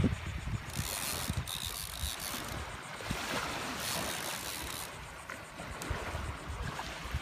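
Wind buffeting the microphone, with uneven low rumbles, over small waves washing on a shallow sandy shore.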